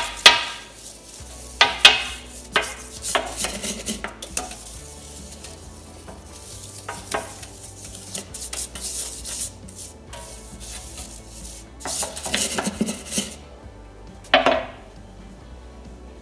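Stiff plastic dish brush scrubbing a white enamelled cast iron sink coated in powder cleanser, in irregular scratchy strokes with pauses between them. A short clunk comes near the end.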